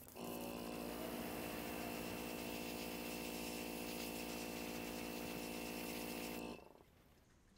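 Airbrush compressor running steadily, with the hiss of air and paint through the airbrush; both stop together about six and a half seconds in.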